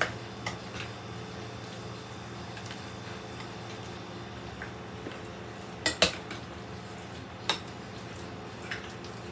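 A utensil stirring shredded beef in barbecue sauce in a glass bowl, clinking against the glass now and then: a few short sharp clinks, the loudest a pair about six seconds in. A steady low hum runs underneath.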